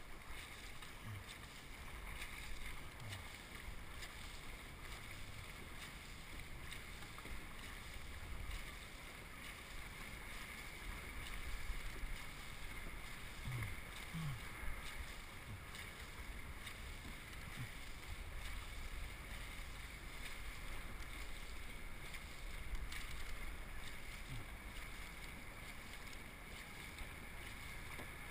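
A dragon boat under way with the crew paddling: water rushing and splashing along the hull, fairly quiet and steady, with low wind rumble on the microphone.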